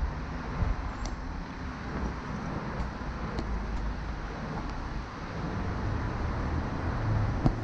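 City street traffic: a steady noise of cars passing on the road, with one vehicle growing louder near the end.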